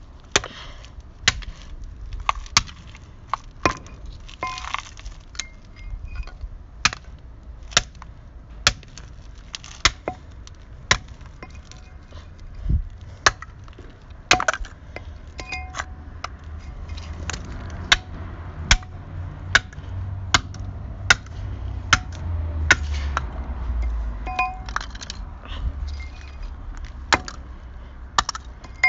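Hammer blows on a plastic webcam lying on gravel, sharp single strikes about one a second, breaking the camera's casing.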